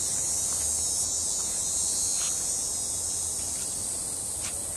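Steady high-pitched drone of summer insects, unbroken throughout, with two faint clicks, one about two seconds in and one near the end.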